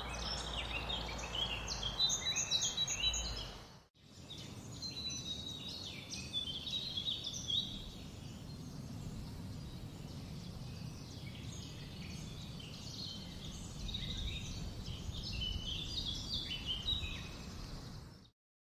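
Many small birds chirping and singing over a faint outdoor background, with a low hum under the first few seconds. The sound cuts out for a moment about four seconds in, then the chirping resumes.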